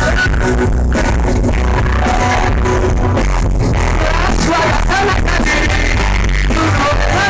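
Rock band playing live, with loud bass, steady drum hits and a singer's voice coming in over the band.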